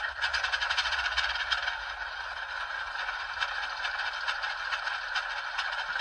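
Sound decoder of an HO-scale Atlas Alco HH600/660 model diesel locomotive playing its engine startup sequence through the model's onboard speaker. It is a steady, rapid rattling diesel clatter.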